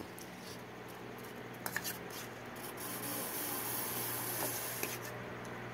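Eating sounds: instant noodles slurped and chewed, with a spoon scraping and clicking on a steel plate a few times. A steady low hum runs underneath.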